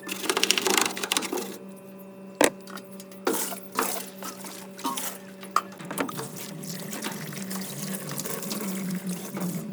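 Water splashing and irregular scrubbing swishes as a washing machine is scrubbed clean, over a steady low hum, with a sharp knock about two and a half seconds in.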